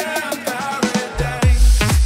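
Electronic dance music from a DJ set. A short break of pitched synth notes without a beat, then a heavy kick drum and deep bass drop in just over a second in and keep a steady four-on-the-floor pulse.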